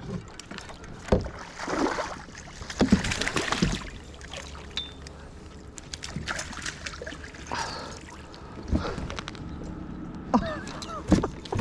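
Water splashing and sloshing beside a small boat, with scattered knocks and clicks, as a hooked bass is fought to the boat and landed.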